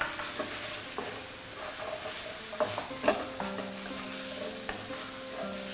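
Stir-fry sizzling in a hot wok while a wooden spatula stirs and scrapes it, with irregular clicks of the spatula against the pan.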